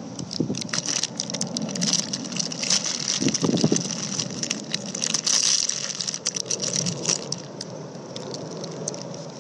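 Foil-paper burger wrapper crinkling and crackling as it is handled, in many quick crackles, over a steady rush of wind and surf.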